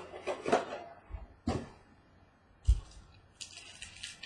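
Trading card boxes and packs being handled and opened by hand: a few short rustles and knocks, with a low thump about two and a half seconds in and a longer crinkly rustle near the end.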